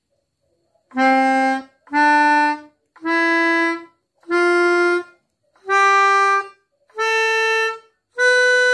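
Melodica playing the C major scale one note at a time: seven separate notes, each held just under a second, stepping upward from middle C to B.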